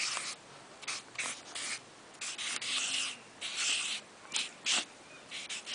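Chisel nib of a Pilot Jumbo marker rubbing across paper as letters are written: a run of short scratchy strokes, with a couple of longer drawn-out strokes in the middle.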